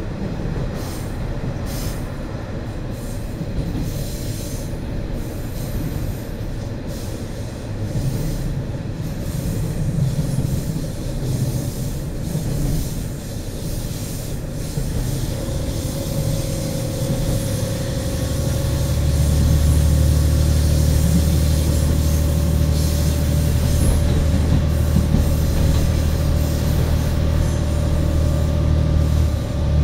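Running sound heard inside a KiHa 40 single-car diesel railcar: a continuous rumble of wheels on rail with the diesel engine underneath. About halfway through a steady whining tone joins in, and a little later the low drone grows louder and steadier.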